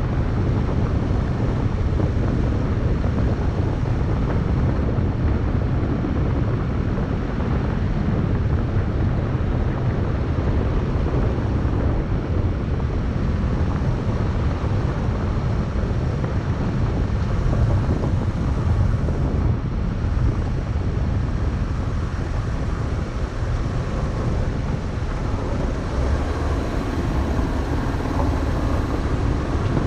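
Vehicle driving along a gravel road: a steady low rumble of tyres on gravel and engine, with wind on the microphone.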